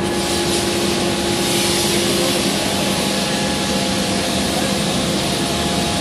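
Industrial forging machinery running steadily: a continuous loud hiss over a low hum, with no hammer blows.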